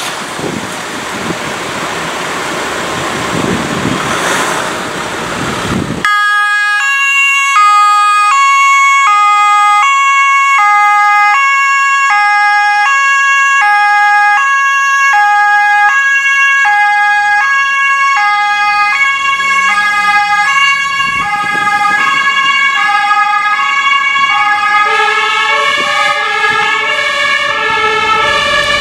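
After about six seconds of steady rushing noise, an ambulance's German two-tone emergency siren (Martinshorn) starts and sounds continuously, switching back and forth between a high and a low tone about every half second. It is the continuous horn ('Dauerhorn') used to force a way out of the fire station and through dense traffic. In the last few seconds the tones overlap with a second, offset copy of the pattern.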